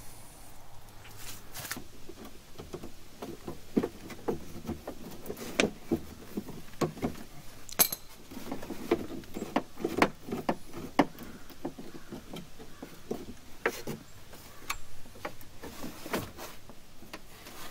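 Irregular metallic clinks and knocks of a socket wrench and extension working inside a truck door panel, taking out the door handle's mounting nuts.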